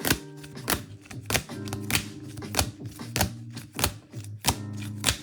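Background music with a steady beat, about three beats every two seconds, over sustained bass chords.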